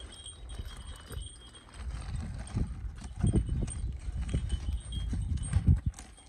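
Irregular low thuds and scuffs of footsteps and dog paws on dry dirt and gravel as a leashed dog is walked and meets another dog.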